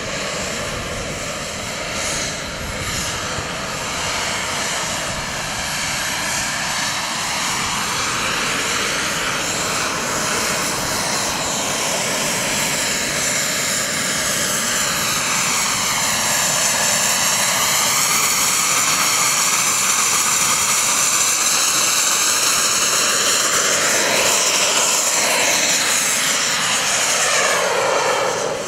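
Engines of two radio-controlled model jets whining steadily as the jets hover and move low overhead. The sound sweeps up and down in pitch as they shift position and grows louder through the second half.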